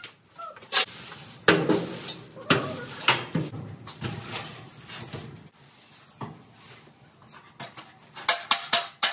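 Old hay bedding being raked out and a shovel scraping across the stable's concrete floor, with irregular knocks and scrapes of the tools against floor and walls and a quick run of scrapes near the end.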